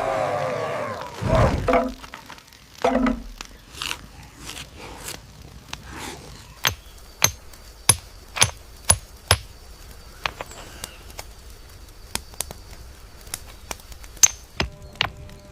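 A series of sharp, hard knocks or taps, about two a second through the middle, then more scattered. A short low growl sounds at the start.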